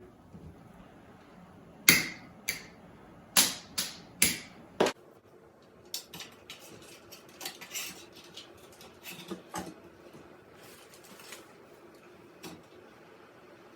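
A run of sharp knocks and taps: six loud ones close together in the first five seconds, then scattered lighter clicks and taps.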